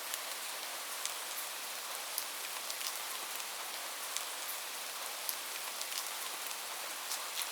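Light rain falling steadily, an even hiss with many scattered small drop ticks.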